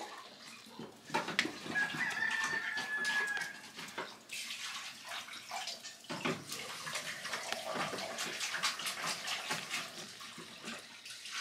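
Water splashing in a sink as a bunch of fresh mint is rinsed by hand, with irregular sloshes and drips throughout.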